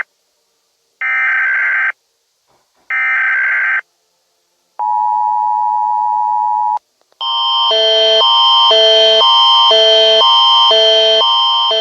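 Emergency Alert System alarm: three short buzzing bursts of header data tones, a steady tone lasting about two seconds, then a loud attention tone that alternates between two pitches about twice a second.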